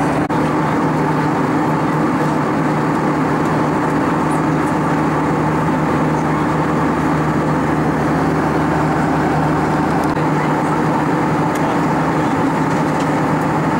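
Steady cabin noise of an Airbus A320-232 at cruise altitude: its IAE V2500 turbofan engines and the rush of airflow past the fuselage, with a few steady low hums running through it.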